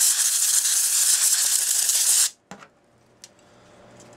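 A jet of compressed air hissing steadily as it blows dirt and brass shavings out of a cuckoo clock movement for cleaning. The hiss cuts off suddenly a little over two seconds in, followed by two brief clicks.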